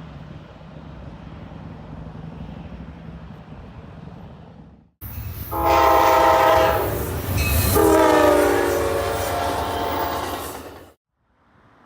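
A low steady rumble, then after a sudden cut a diesel locomotive's multi-note air horn sounds two long blasts, one straight after the other, over the rumble of a passing train. The horn is the loudest thing and stops abruptly near the end.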